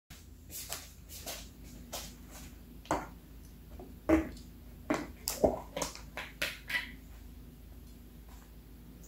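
Short clinks and knocks of tableware on a kitchen counter as a glass jam jar and a plate of toast are handled, a dozen or so sharp taps, the loudest about four and five and a half seconds in.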